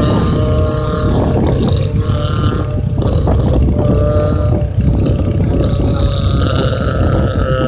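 Off-road rally car engine running hard over a heavy low rumble, its pitch stepping up and down several times.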